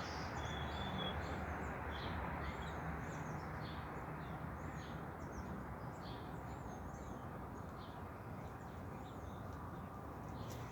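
Small birds calling with short chirps again and again, over a steady outdoor background noise with a faint low hum.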